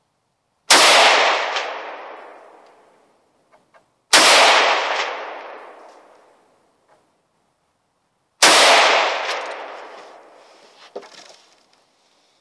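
Three rifle shots from an SKS carbine firing 7.62x39 rounds, spaced about three and four seconds apart, each ringing out in a long echoing tail lasting about two seconds. A few light clicks follow near the end.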